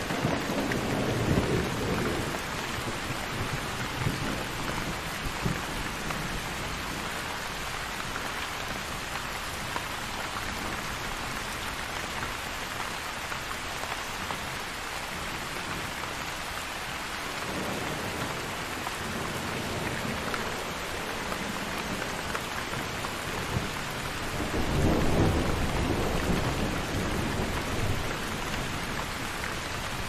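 Thunderstorm: steady rain falling, with a roll of thunder dying away in the first couple of seconds and another low rumble of thunder about 25 seconds in.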